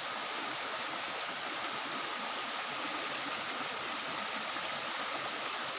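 Steady rushing of a mountain stream, water running over rocks.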